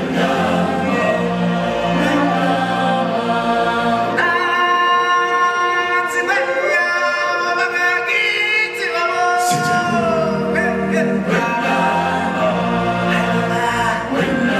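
Choir singing a show song over backing music. About four seconds in the low accompaniment drops away, leaving the voices nearly alone, and it comes back about five seconds later.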